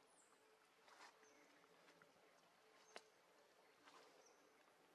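Near silence: faint outdoor ambience with a few soft rustles and clicks, one sharp click about three seconds in, and two brief high chirps.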